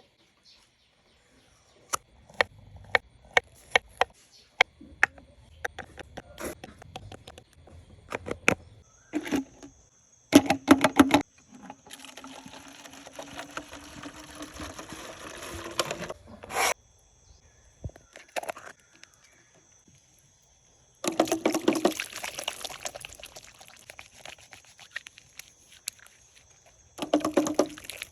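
Water being poured into a container, the pitch of the filling rising slightly over about four seconds, amid scattered clicks and knocks from handling the containers.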